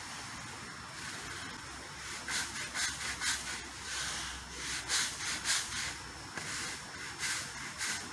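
Dyson vacuum running with a steady hiss and a faint high motor whine as it picks up cleaning compound and oil from a concrete floor. From about two seconds in, a string of short, irregular surges of noise comes as the head is worked over the floor.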